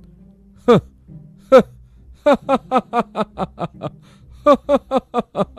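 A man's acted laugh, proud and gloating: two single 'ha's, then from about two seconds in, quick ha-ha-ha runs of short falling-pitch laughs, over soft background music.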